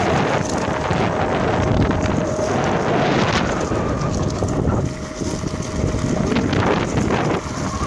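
Fiik Big Daddy electric skateboard riding over a rough dirt trail: a continuous loud rumble of the wheels on the ground with wind buffeting the microphone, and a thin steady whine from the electric drive.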